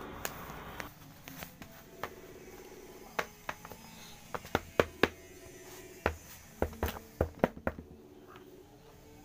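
Irregular light clicks and taps of small plastic sand moulds and tools being handled and set down during kinetic sand play, a few to several per second at times.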